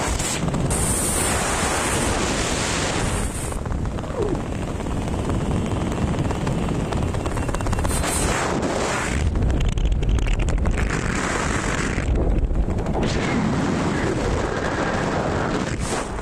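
Wind buffeting the microphone of an action camera carried by a parachutist descending under an open canopy: a loud, rushing noise with a deep rumble that swells and eases in gusts.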